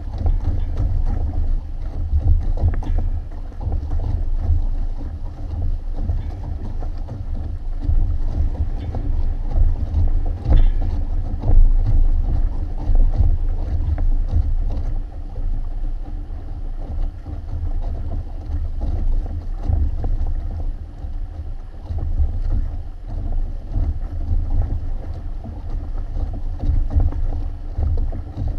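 Wind buffeting the microphone in a constant low rumble, with water rushing and splashing along the hulls of a Hobie Tandem Island sailing trimaran under way.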